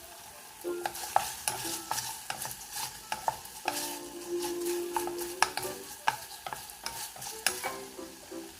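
Stir-frying in a hot pan: a utensil clicks and scrapes irregularly against the pan over the sizzle of frying oil, as pork and potato are tossed.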